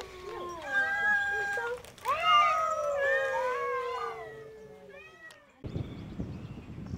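Cats meowing in long calls that slide up and down in pitch and overlap one another. About five and a half seconds in the calls cut off suddenly and a low rumbling noise takes over.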